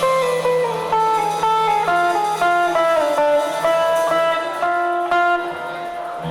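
Guitar playing a single-note melody line live, plucked notes stepping down in a run and then moving up and down at about two to three notes a second.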